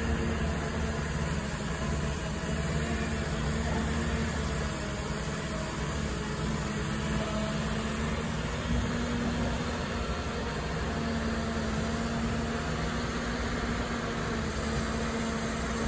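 Caterpillar 319D tracked excavator's diesel engine running steadily with a low hum while the machine digs and swings a loaded bucket.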